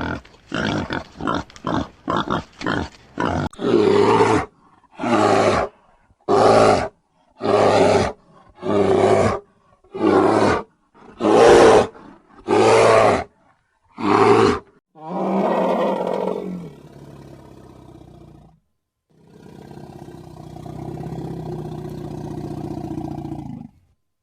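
An animal calling over and over: a quick run of short calls, then about nine longer calls a little over a second apart, then two long drawn-out calls near the end.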